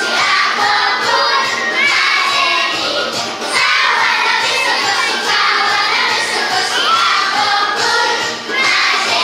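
A group of young children singing a song together, loudly and somewhat shouted, over backing music.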